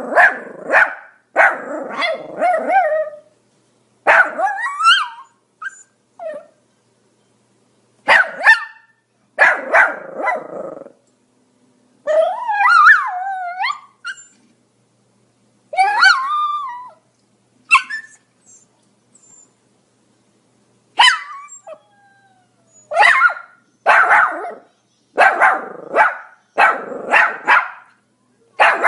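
Pomeranian barking in short, sharp bursts with silent pauses between them. About halfway through there is a longer yelp that wavers up and down in pitch. Near the end the dog barks steadily, about once a second.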